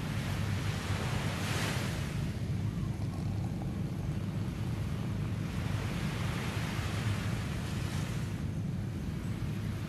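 Sea waves washing onto a beach, the surf swelling about a second and a half in and again around six seconds. A steady low rumble of wind on the microphone runs underneath.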